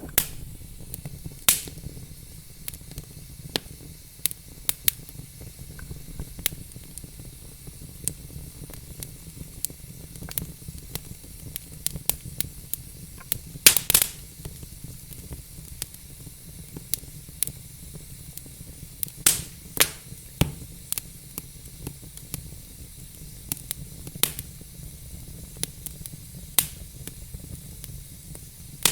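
Wood fire burning in a fireplace: a steady low rumble of flames with irregular sharp crackles and pops from the logs, a few louder snaps in quick clusters.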